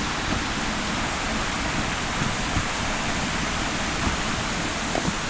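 Steady rushing of running water, an even hiss with no change in level, with a couple of faint ticks near the end.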